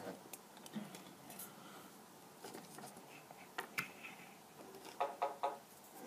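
Faint, scattered small clicks and taps of small hard objects being handled, a few at a time, between stretches of quiet.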